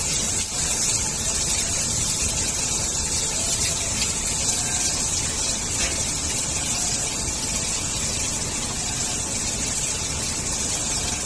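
Automatic stir-fry cooking machine running at heat level three, its stirring arm turning cured pork in hot oil in the steel pot, with a steady hiss of frying and machine noise.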